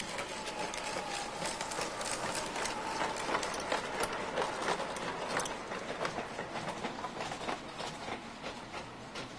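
Model train running on its track: a steady rumble with many irregular clicks as it passes over the rail joints, and a faint motor whine in the first few seconds.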